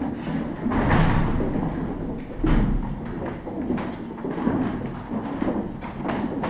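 Footsteps of people walking over loose wooden planks laid on a tunnel floor: irregular knocks and thuds, with a heavier thump about two and a half seconds in.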